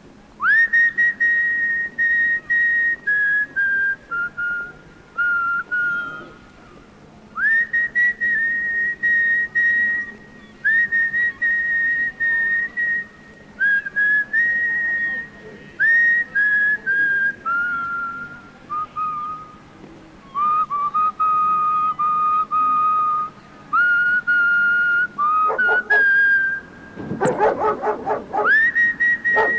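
A person whistling a slow melody, phrase after phrase of clear held notes that slide up into each phrase and step down between notes. Near the end a short, lower, rougher sound briefly cuts across the tune.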